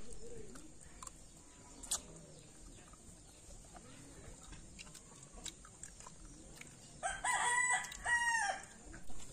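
A rooster crowing about seven seconds in: one loud multi-part cock-a-doodle-doo lasting about a second and a half.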